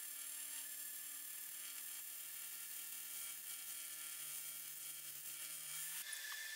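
AC TIG welding arc on cast aluminium buzzing steadily during a crack repair. It cuts off suddenly about six seconds in as the arc is stopped.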